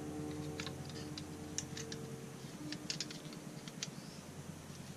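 Small steel parts of a Benelli SuperNova shotgun's trigger group clicking and ticking against each other as the shell carrier is fitted into the trigger group by hand, in scattered light clicks. Soft background music is held underneath.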